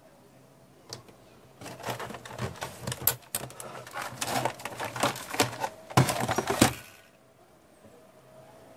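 Plastic body of a robot vacuum knocking and rattling as it is handled and turned over: a dense run of clicks and clacks, with the loudest knocks about six seconds in, then it goes quiet.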